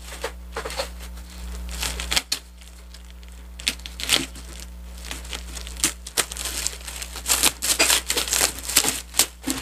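Plastic bubble wrap crinkling and crackling as it is pulled and peeled off a bottle, in irregular bursts that come thicker in the second half.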